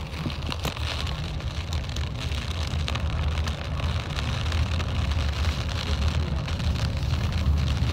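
Inside a moving car in a heavy thunderstorm rain: a low rumble of the car on the road, with rain hitting the windows and roof in scattered small ticks, growing slowly louder.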